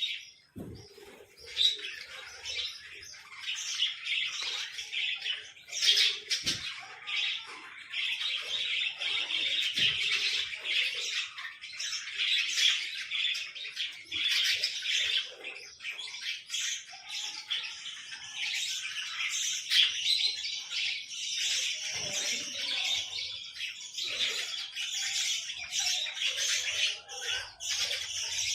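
Small pet birds chirping and chattering without a break, a dense high-pitched twittering with occasional squawks. A few soft knocks come near the start and about six seconds in.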